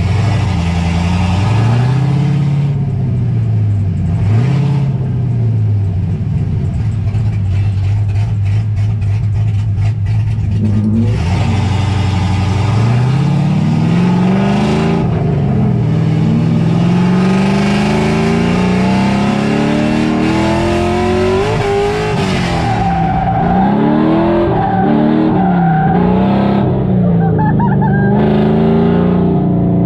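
Loud V8 engine of an LS-swapped Nissan 240SX (S14) drift car, revving up and down again and again, holding a steadier pitch for a few seconds about a third of the way in.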